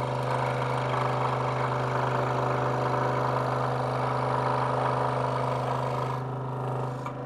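Delta 40-570 scroll saw running with a steady hum, its blade cutting through a small block of wood fed by hand. The cutting noise eases off about six seconds in while the motor hum goes on.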